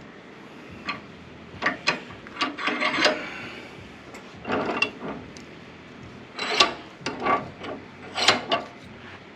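Irregular bursts of clicking and scraping as small hardware and hand tools are handled, with several clusters of sharp clicks separated by pauses.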